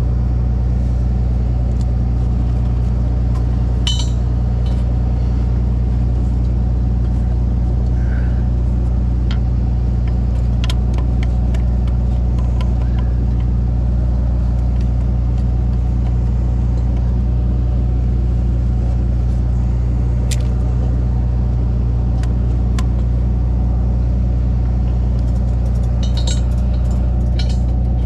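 Tow truck engine idling steadily, with a few short metallic clinks from tow straps and hooks being fitted.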